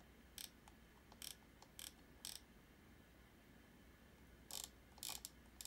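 Computer mouse clicking while a document is scrolled through on a computer: four sharp clicks about half a second apart, a pause, then a few more near the end, over near silence.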